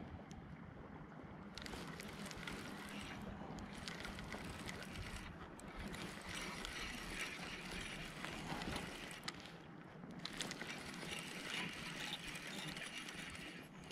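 Spinning reel being wound in, in several spells with short pauses between.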